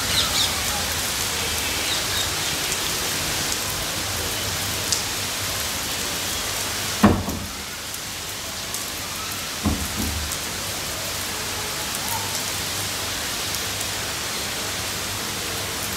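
Steady rain falling, an even hiss of drops on a paved terrace and the surrounding trees. Two dull thumps cut through it, about seven and about ten seconds in.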